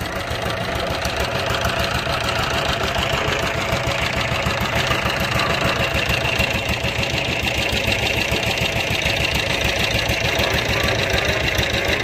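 Engine running steadily at idle with a rapid, even beat.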